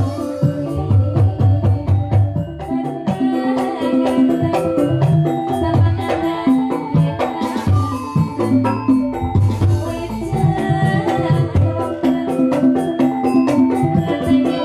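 Live Banyumasan music accompanying a lengger dance: many pitched melodic notes over a steady, busy drum rhythm, with a keyboard among the instruments.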